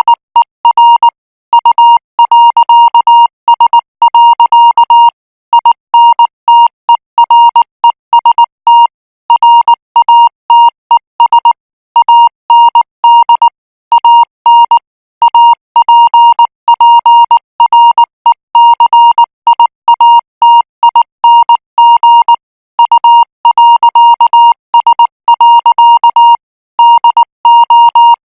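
International Morse code practice signal: a single beep-like tone of about 1 kHz keyed on and off in dots and dashes at 18 words per minute, with short pauses between characters.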